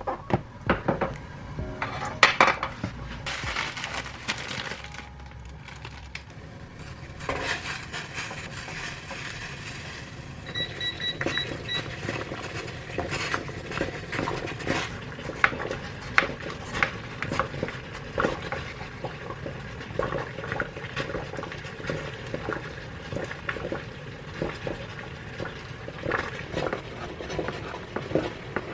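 Kitchen clatter: dishes and utensils clinking and knocking again and again, with a run of about five short electronic beeps from an appliance a little over ten seconds in.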